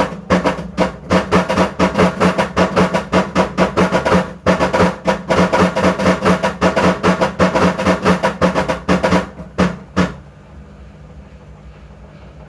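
Washing machine running with a rapid, even knocking, about five knocks a second, over a steady hum. The knocking stops abruptly about ten seconds in, leaving a faint hum.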